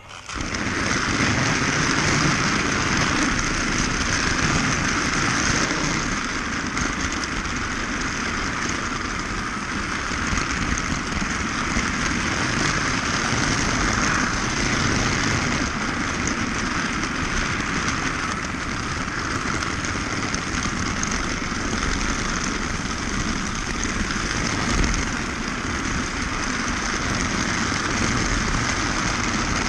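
Battery-powered toy train running along its track, a steady whirring motor and wheel noise heard close up from a camera riding on the train. A brief louder bump comes near the end.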